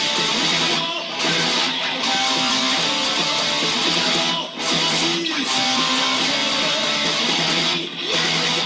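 Electric guitar playing a heavy metal song, with short breaks in the playing about a second in, around the middle and near the end.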